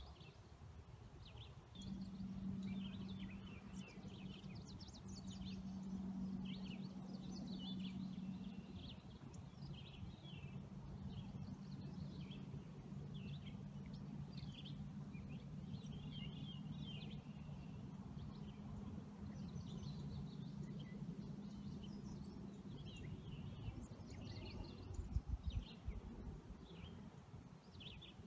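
Many quick, high chirps like birdsong over a steady low hum that stops about three-quarters of the way through, with a few low thumps near the end.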